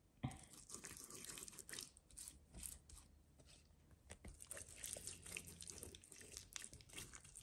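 Faint, irregular wet squelching and slapping of hands rubbing a spice marinade into raw chicken skin and flesh.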